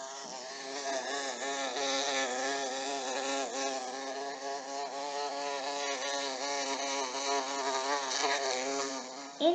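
A bee buzzing in flight: a steady buzz whose pitch wavers up and down as it flies about.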